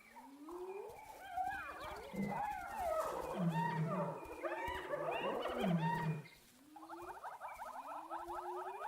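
Spotted hyenas calling: a mix of cackling and whooping calls for about six seconds, then rising whoops repeated about once a second over a fast chattering.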